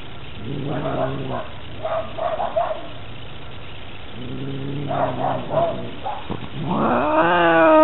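Domestic cats in a fight standoff: two spells of low growling with short higher cries, then near the end a loud, drawn-out yowl that rises and then falls in pitch.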